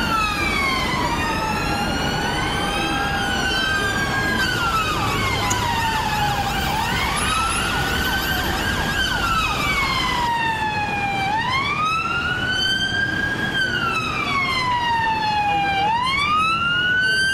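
Two or more police sirens wailing out of step, each rising quickly and then falling slowly in pitch about every four to five seconds. From about ten seconds in, a single siren carries on, over the hum of street traffic.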